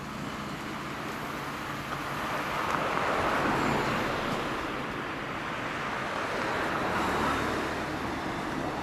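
Yamaha FZ400 (Fazer 400) inline-four idling through a Leo Vince L SBK aftermarket muffler. A broad rushing noise swells twice over it, about three seconds in and again about seven seconds in, like traffic going past.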